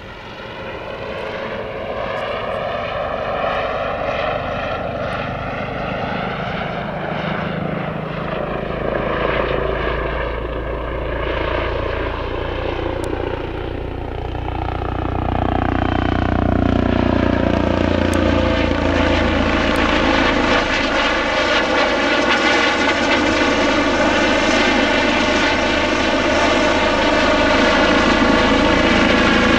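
Turbine helicopters flying past: engine whine and rotor noise, the pitch slowly bending up and down as they pass. About halfway through the sound grows louder and holds steady as a Eurocopter EC635 with its fenestron tail rotor flies by.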